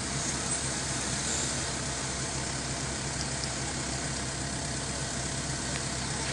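Toyota Hilux pickup's engine running steadily as the truck wades through a fast, churning river, under a steady rush of water.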